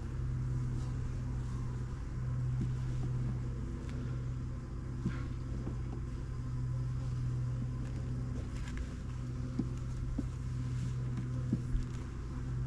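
Steady low hum of honeybees buzzing around an open hive, with a few faint light clicks.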